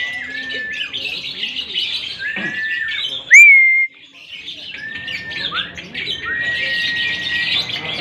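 Caged lovebirds chattering in a dense, continuous high-pitched stream, with repeated short whistled notes over it. A loud whistle rises and holds a little over three seconds in.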